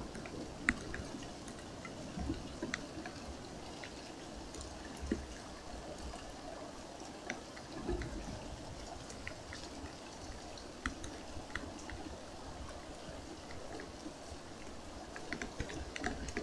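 Steady rain falling and water dripping, with scattered sharp drop hits.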